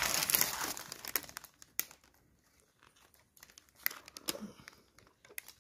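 Paper sandwich wrapper crinkling as the wrap is handled. It is loudest in the first second, then thins to scattered small rustles and clicks.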